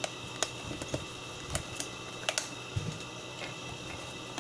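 Irregular sharp plastic clicks and a few duller knocks from a headset's casing being handled and opened up.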